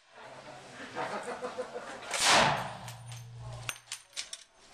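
One loud, sharp bang of gunfire about two seconds in, a single shot or a very short burst, with a low hum lingering for about a second after it. Faint voices and small metallic clinks sound around it.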